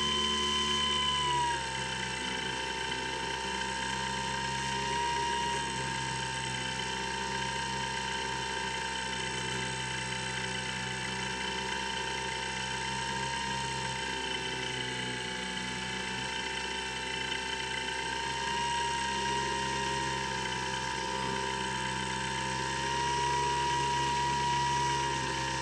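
Skywalker X7 flying wing's electric pusher motor and propeller whining steadily in flight. The pitch and loudness drop about a second and a half in as the throttle eases back, then waver slightly with small throttle changes.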